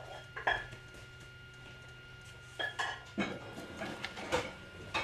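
A few light clinks and taps of cookware, scattered through, over a faint steady high-pitched hum.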